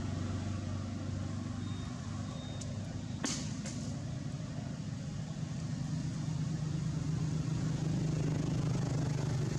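A motor vehicle engine running steadily, its hum rising slightly in pitch and getting a little louder about halfway through. A single sharp click a little after three seconds in.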